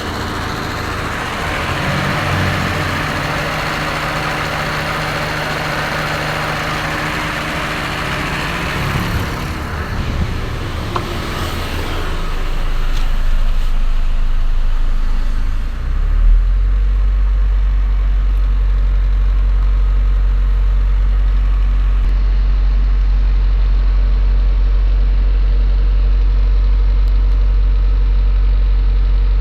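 Mazda car idling with its freshly repaired air conditioning running: a steady hiss over a low hum for the first dozen seconds, then a strong, steady low hum takes over.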